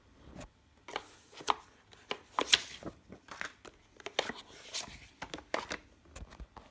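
Cardboard and paper of a VHS box set being handled: a run of irregular rustles, scrapes and taps as the card insert is moved by hand.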